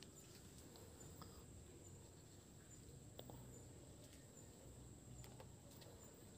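Near silence: faint background hiss with a steady high-pitched whine and a few faint ticks.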